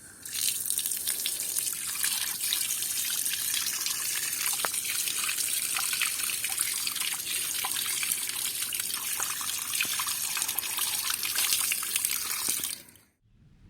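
Heavy rain falling close by, a dense steady hiss with many individual drops ticking sharply through it; it cuts off suddenly near the end.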